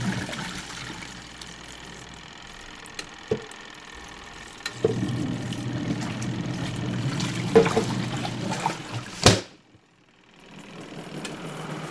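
Water being poured and running through a twin-tub washer's spin-dryer basket for a spin rinse, over a steady low hum that grows louder about five seconds in. A sharp click about nine seconds in, then the sound cuts out abruptly.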